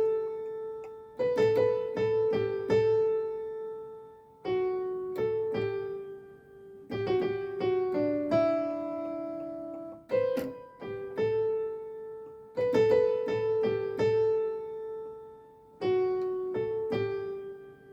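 Piano playing a short, simple melody on the notes of D major, mostly around G, A and B, with low bass notes under it. The phrase is played through twice.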